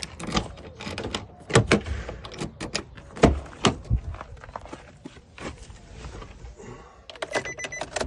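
An irregular run of sharp clicks and knocks, some heavier, like handling of keys, tools or a car door, with a few short beeps near the end.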